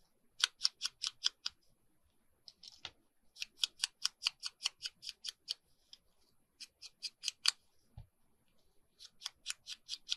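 Small scissors snipping through a paper sticker sheet in four quick runs of short cuts, about five snips a second, with brief pauses between runs.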